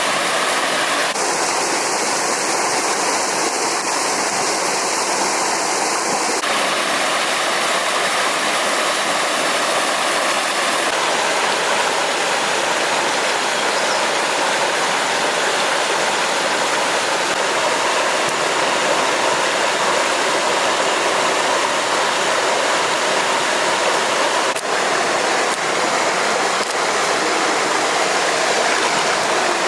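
Stream water rushing and splashing in a steady, loud wash. Its tone shifts abruptly a few times in the first dozen seconds.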